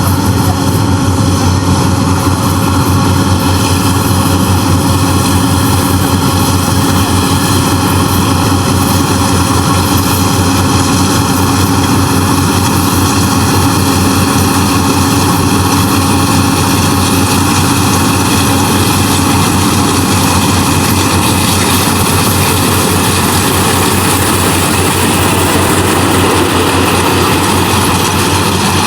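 Yanmar AW70 VW combine harvester's diesel engine running steadily at working speed during rice harvesting, a loud, even drone that holds constant throughout.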